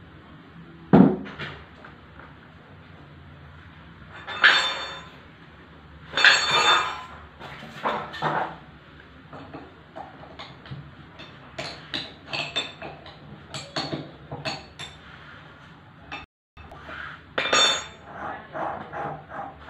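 Metal parts of a floating fish feed machine being handled and fitted by hand: metal-on-metal clanks and clinks. Several louder clanks ring on briefly, with a run of small clicks and taps between them.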